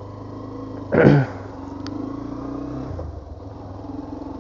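Motorcycle engine running steadily while being ridden, heard through an action camera's mic, with a brief loud sound about a second in.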